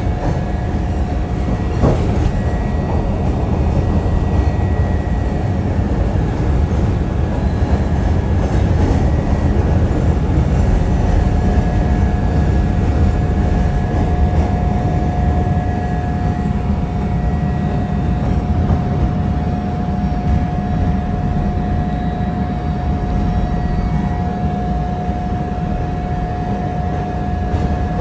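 CTA Orange Line rapid-transit train running, heard as a steady loud rumble of wheels and car. There is a sharp click about two seconds in, and a thin steady whine comes up about halfway through.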